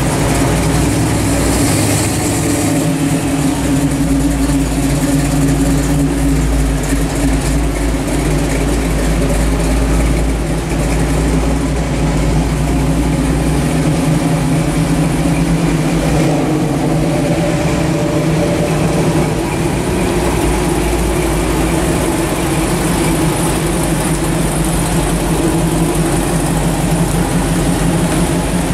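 Engines of classic cars, Chevrolet Camaros and a Chevrolet pickup, running steadily at low speed as they cruise slowly past one after another, with a strong low rumble.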